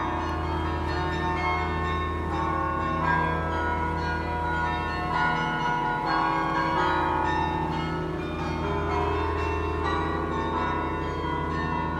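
Carillon bells in a church tower playing a melody, one note after another with the earlier notes still ringing under the new ones.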